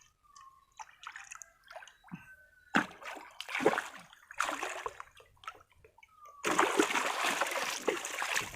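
Water splashing and sloshing as a large baung catfish is grabbed and lifted out: a few separate splashes at first, then heavy, continuous splashing from about six and a half seconds in.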